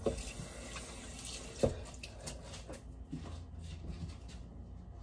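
Tap water running into a sink while hands are washed under it, with a sharp knock about one and a half seconds in.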